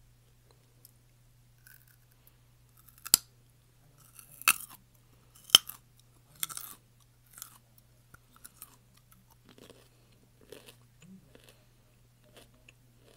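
Close-miked crunchy eating: three sharp, loud bites or crunches about three, four and a half and five and a half seconds in, then softer, irregular chewing. A faint steady low hum runs underneath.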